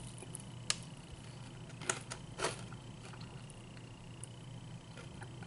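Close mouth sounds of someone chewing a bite of fried chicken finger: three short wet smacks and clicks in the first two and a half seconds, then only quiet chewing. A faint steady high whine and low hum sit underneath.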